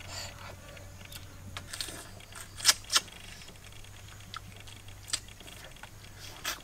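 Cooked crab shells cracking and snapping as they are pulled apart by hand and bitten: a run of short sharp clicks, with two loud cracks close together about three seconds in and more near the end.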